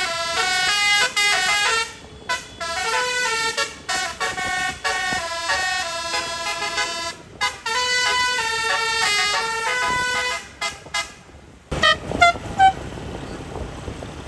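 Bus telolet horn, a multi-trumpet air horn, playing a melody of quick stepped notes for about eleven seconds. It cuts off suddenly, followed by a steady noisy background and a few short, loud blips.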